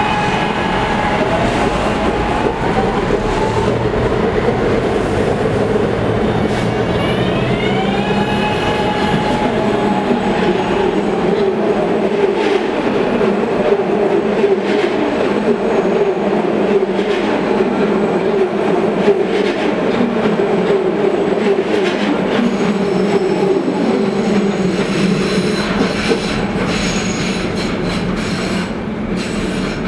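Adtranz M-4 electric subway-elevated trains moving past the platform, their wheels running on the rails. Whining traction tones glide upward as a train gathers speed. The noise stays steady and eases off near the end as the trains draw away.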